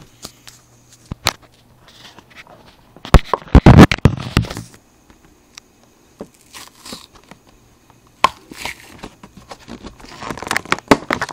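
A plastic-and-cardboard toy blister package being handled and pressed: scattered clicks and crinkling, with a loud burst of crackling about three to four seconds in and more crinkling near the end.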